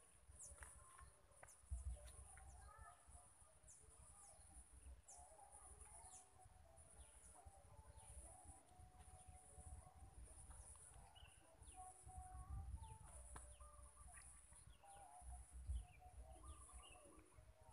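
Faint outdoor ambience of many birds chirping and calling, over a steady high-pitched drone and a low rumble of wind on the microphone.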